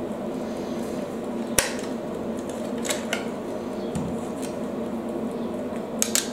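Kitchen handling sounds over a faint steady hum: a sharp click, a few lighter clicks and a soft knock as the switched-off electric hand mixer is set down and its beaters are pulled out. Near the end the metal beaters begin clicking against a stainless steel bowl.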